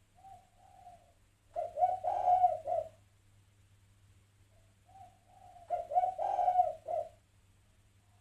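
Spotted dove (terkukur) cooing twice. Each phrase is a soft opening note followed by a louder run of rapid, broken coos, the two phrases about four seconds apart.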